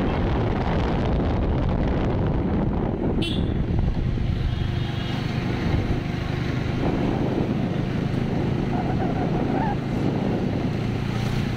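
Steady engine and road drone of a vehicle in motion through street traffic, with wind rushing over the microphone. One short, sharp high-pitched sound about three seconds in.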